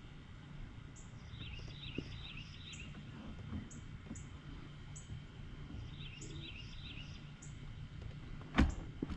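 Birds chirping: a short, high falling chirp repeated about every half-second to second, with two bursts of quicker, lower chirps, over a low steady hum. A single sharp knock comes near the end.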